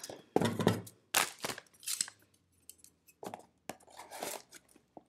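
Large scissors snipping open a toy's packaging: a string of short, sharp snips and clicks mixed with the rustle of the package being handled.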